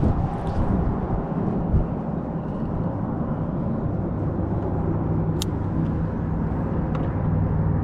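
Strong wind buffeting the microphone in a loud low rumble. A steady engine hum joins about halfway through, and there is one sharp click shortly after.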